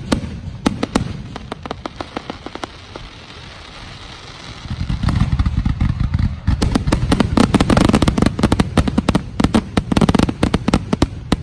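Fireworks finale: a run of sharp aerial shell bangs that thins out after about three seconds, then builds from about five seconds into a dense, continuous barrage of bangs over a deep rumble, stopping just before the end.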